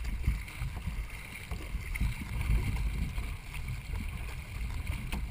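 Racing canoe under way, heard from a camera mounted on the hull: paddles working the water and water rushing along the hull, under an uneven low rumble of wind on the microphone.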